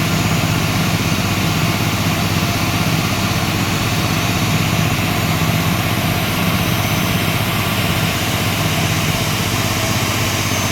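An engine idling steadily, unchanging in pitch and level.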